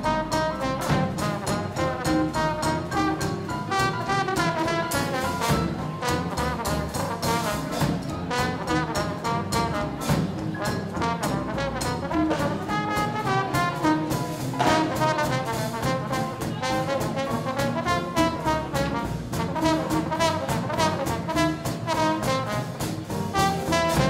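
Big band playing swing-style jazz with a steady beat, the brass to the fore and a trombone prominent over saxophones, piano, upright bass and drums.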